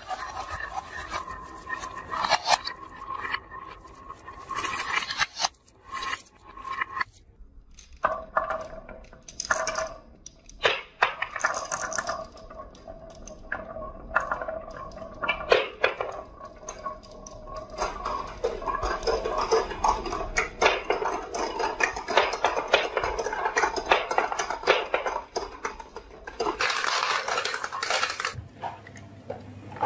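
Many glass marbles rolling down a carved wooden wave slope, clicking and rattling against the wood and against each other in a dense, uneven clatter. A louder stretch of clattering comes near the end.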